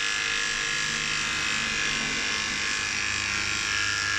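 Electric pet grooming clippers running with a steady buzz, cutting through a dog's matted fur.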